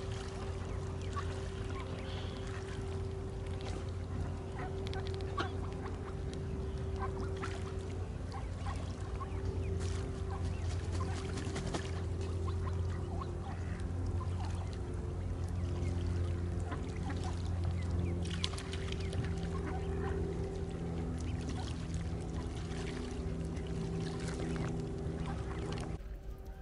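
Ducks and geese calling on a lake, short scattered calls over a steady low hum.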